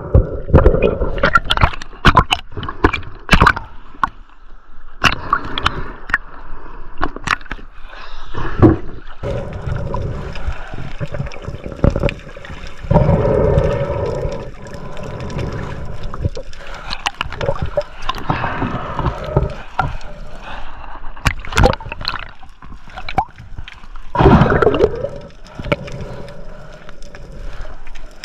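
Underwater action-camera sound of a freediver descending: water rushing and gurgling over the camera, with frequent sharp clicks and knocks throughout.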